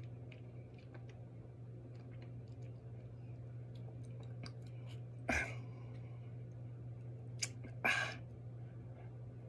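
Faint mouth clicks and chewing of hot peppers over a steady low hum, with two short, sharp breaths about five and eight seconds in as the eater huffs at the burn.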